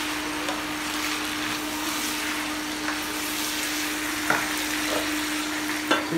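Food sizzling steadily as it fries in hot oil in a cooking pot, with a steady low hum beneath it and a couple of light knocks in the second half.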